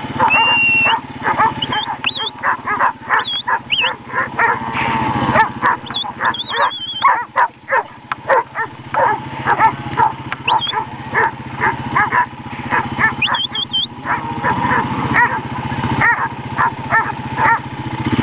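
Working dog barking rapidly and without pause while driving cattle, about two to three barks a second. A few short, high whistle-like notes sound now and then over the barking.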